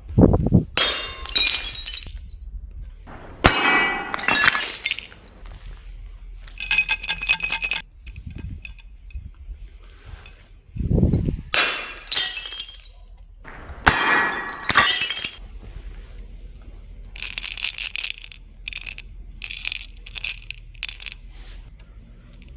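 Glass bottles packed with small plastic pieces smashing against a wall: four loud crashes, each a thud followed by a spray of shattering glass, with lighter tinkling in between. Near the end, a run of quick glassy clinks.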